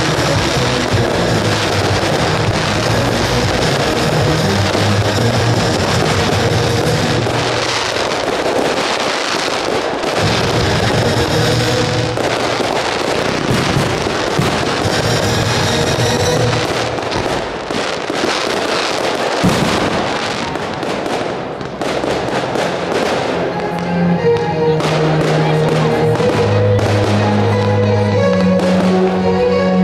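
Fireworks bursting and crackling over music. The bangs and crackle are densest through the middle, and near the end the music's held notes come through more clearly.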